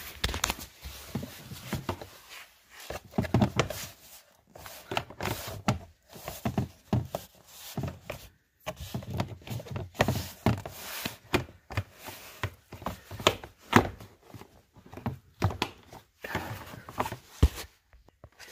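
Hands pushing a Ford Explorer's plastic door sill trim and rubber weather strip back into place: irregular knocks, thumps and clicks as the trim is pressed down and its clips snap in.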